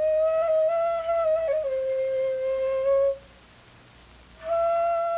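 Background music: a single melodic line of long held notes with a soft, flute-like tone. A note steps down about a second and a half in, then the music breaks off for about a second before a higher note comes in near the end.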